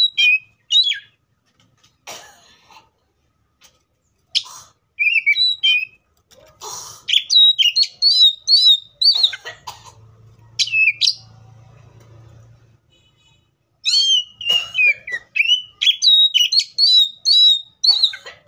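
Oriental magpie-robin singing: quick runs of sharp whistled notes that slide up and down, with a pause of a second or two a little past the middle.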